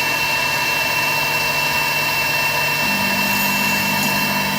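Techno HD-II tabletop CNC router's spindle running with a steady high whine over a hiss as a single-flute downcut O-flute bit cuts thin brass sheet; a lower hum joins about three seconds in.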